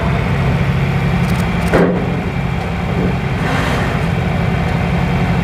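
John Deere farm tractor engine running steadily at low speed as the tractor is eased up and across a tipping balance-beam ramp. There is a brief sharp sound about two seconds in.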